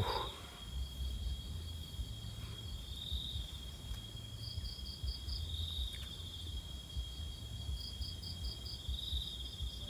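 Night insects calling: a steady high-pitched trill, with two short runs of four or five quick chirps, one near the middle and one near the end. Under them a low uneven rumble.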